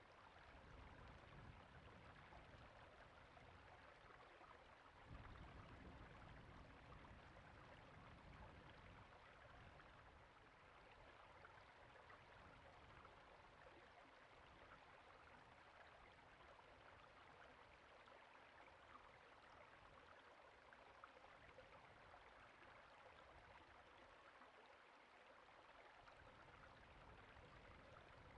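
Faint, steady rushing of a creek's flowing water, with a low rumble that comes and goes over the first ten seconds or so.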